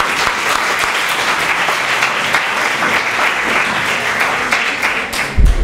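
Audience applauding, a dense steady clapping that eases off near the end, followed by a short low thump.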